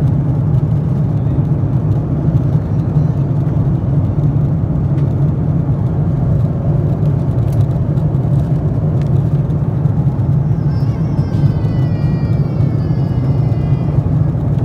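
Steady low drone of an Airbus A330-300's passenger cabin: engine and airflow noise. A few light clicks of magazine pages being handled sound over it.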